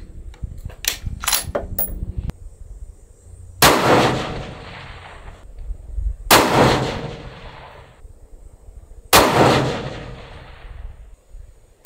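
Three rifle shots from a bolt-action .223, spaced about three seconds apart, each trailing off in a long echo. A few sharp clicks come before the first shot.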